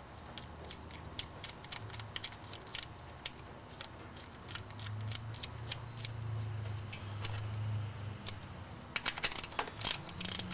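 Irregular metallic clicks and clinks of bolts and hand tools as a blow-off valve is bolted onto the turbo, coming thicker near the end, over a low steady hum.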